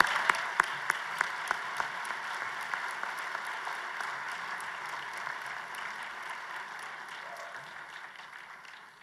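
Audience applauding, with a few louder, evenly spaced single claps close by in the first two seconds; the applause dies away gradually toward the end.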